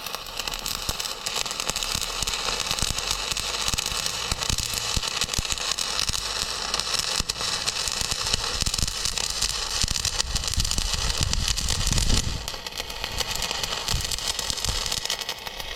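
Stick-welding arc crackling and sizzling steadily as a bead is laid.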